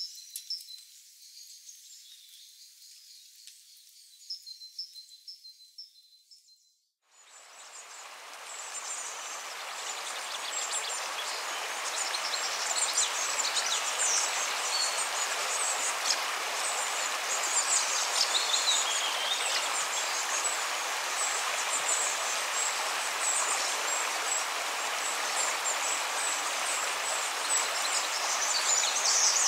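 Faint, high, repeated chirping in dry forest. After a brief cut, a shallow rocky stream runs steadily over stones, with high chirping calls above the water.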